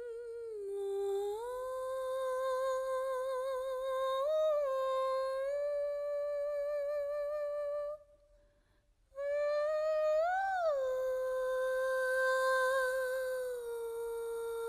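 Music: a single voice humming long held notes with a wavering vibrato and a few swoops up and down in pitch, breaking off for about a second near the middle.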